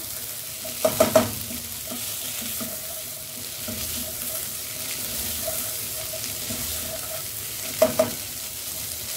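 Potato and fenugreek-leaf stir-fry sizzling in a nonstick pot as a spatula stirs and turns it. A few sharp knocks of the spatula against the pot come about a second in and again near the end.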